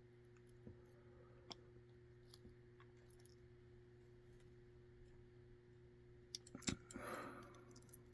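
Faint, scattered small clicks of tweezers and metal lock parts as a mortise lock cylinder is taken apart, with a quick cluster of louder clicks near the end, over a faint steady hum.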